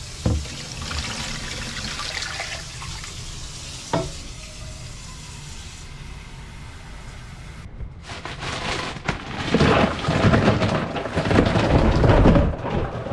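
Water running from a tap into a container, with two short knocks. About eight seconds in it gives way to louder rattling and splashing as ice is tipped into the water.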